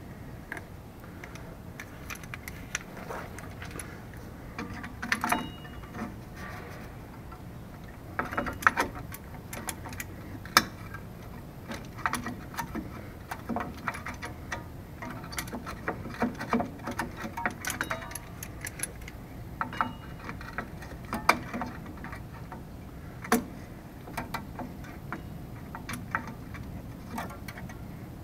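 Locking pliers working the spring hardware of a rusty rear drum brake: irregular metallic clicks, clinks and scrapes of steel on steel, with a few sharper clanks.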